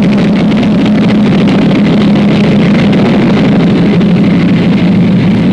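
Twin-engine propeller airliner taking off, its engines running at full power: a loud, steady drone.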